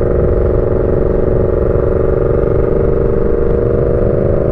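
Yamaha MT-07's parallel-twin engine running at steady revs, an even drone with a rough low rumble beneath it.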